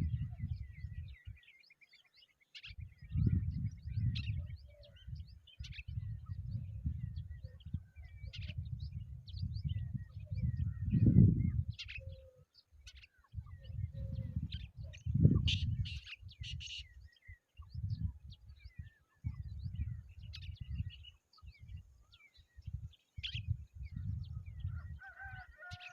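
Birds chirping and calling in short, scattered notes throughout. A loud low rumble comes and goes in gusts and peaks twice, about eleven and fifteen seconds in.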